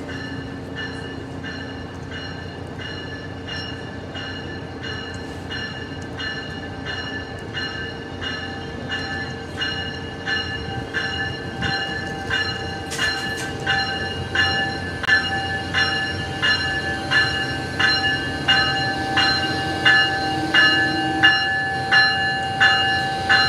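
Bell of an arriving Amtrak ACS-64 electric locomotive ringing about twice a second, growing louder as the train pulls in alongside the platform. A steady high tone joins about halfway.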